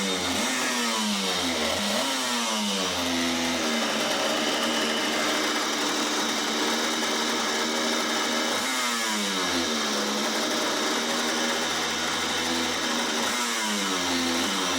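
Vintage 100cc reed-valve two-stroke kart engine revving up and falling back again and again. It climbs several times in quick succession at first, holds high and steady for a few seconds, then rises again about nine seconds in and once more near the end.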